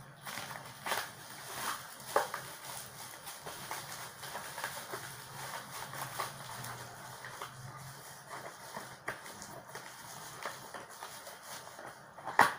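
Scissors snipping and plastic wrap crinkling and tearing as a cardboard carton is cut open, in irregular short crackles, with a sharper, louder rip near the end.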